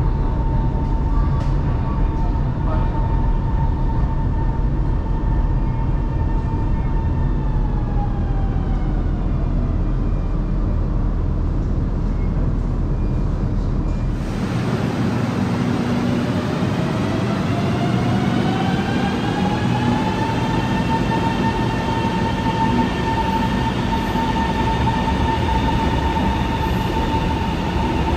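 Shanghai Metro Line 2 train running with a low rumble and an electric motor whine. The whine holds steady, then winds down in pitch. About halfway the sound changes abruptly, and a whine rises in pitch and then holds steady.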